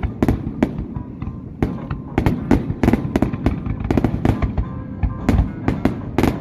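Aerial fireworks display: a fast, irregular run of shell bursts and sharp bangs, about three a second, over a continuous low rumble.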